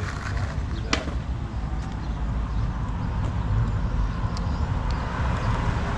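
Car driving: a steady low rumble of engine and road noise, with a single sharp click about a second in.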